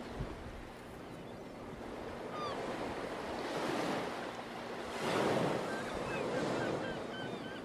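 Ocean surf washing in and swelling several times, the biggest swell a little past the middle, with short high bird calls scattered over it.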